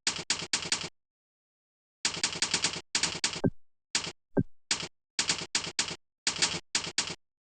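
Fast typing on a computer keyboard in short bursts of rapid key clicks, with brief pauses between bursts. Two short falling tones sound in the middle, about a second apart.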